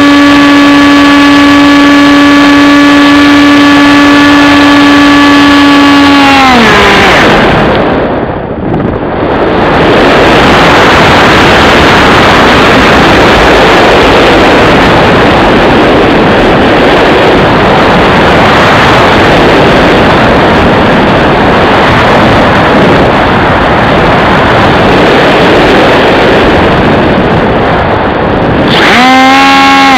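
The 2200kv brushless motor and propeller of a Bixler RC plane whine at a steady high pitch, then the throttle is cut about six seconds in and the whine slides down and stops. While it glides, wind rushes loudly over the onboard camera's microphone, until the motor spins back up with a rising whine near the end.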